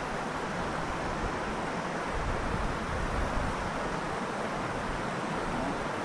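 Steady rush of a mountain stream running over rocks, with wind rumbling on the microphone.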